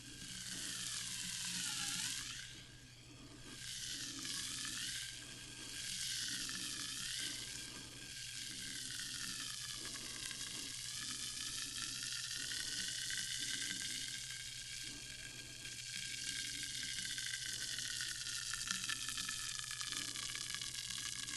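Sparkling water fizzing: a dense hiss of tiny bubbles popping, swelling and easing off a few times before settling into a steady fizz.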